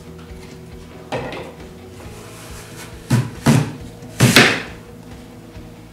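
Plastic Tupperware lever-press fry cutter forcing an apple through its grid of blades. There is a knock about a second in, then three loud crunching thumps close together as the lever is pushed down and the apple is cut into sticks.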